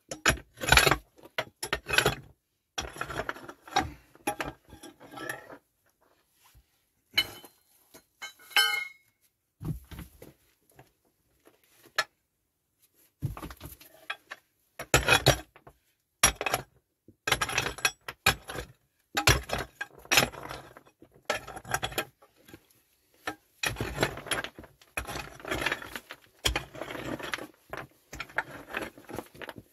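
Short-handled pick striking and prying into packed stone fill: irregular clinks of metal on rock and stones knocking together, with a pause of a few seconds in the middle.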